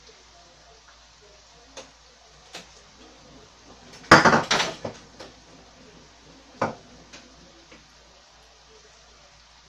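Kitchenware being handled: a few light clicks, then a burst of clinking and knocking about four seconds in, and a single knock a couple of seconds later.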